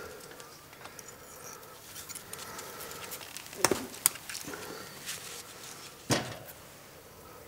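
Close handling sounds of hands working twine with a small blade: a few sharp clicks and knocks, about three and a half seconds in, just after four seconds and again about six seconds in, over quiet room tone.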